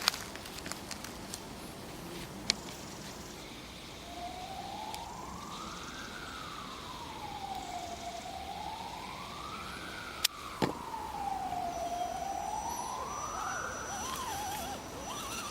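A siren wailing slowly up and down in pitch, about three rise-and-fall cycles of a single clear tone, starting about four seconds in. A few sharp clicks are heard, at the start, at about two and a half seconds and twice at about ten seconds.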